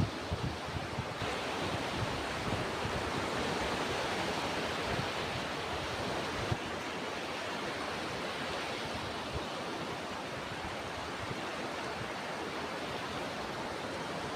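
Ocean surf washing in a steady, even rush, with wind buffeting the microphone in irregular low rumbles.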